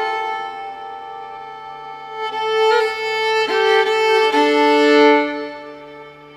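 Background music led by a violin playing slow, long held notes that swell and then fade.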